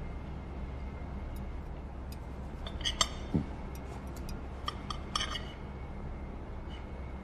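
Knife and fork clinking and ticking against a china plate: scattered light ticks, then a few sharper ringing clinks in the middle, over a low steady room hum.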